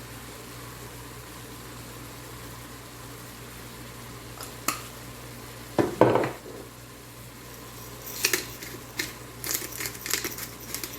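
Kitchen utensils and containers clinking against a cooking pot while seasoning: a couple of clicks, a heavier knock about six seconds in, then a run of quick clicks and taps from about eight seconds on, over a steady low hum.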